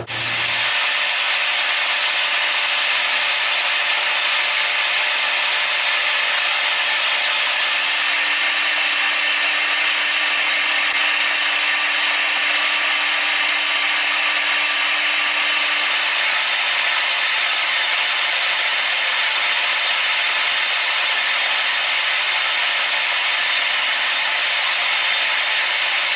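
CNC machine tool running, a steady mechanical hiss and grind of machining.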